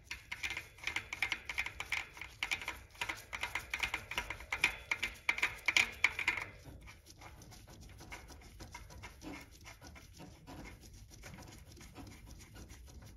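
Bearing cone being screwed by hand onto the threaded axle of a bicycle front hub: rapid metallic clicking and rattling for about six seconds, then fainter, scattered ticks.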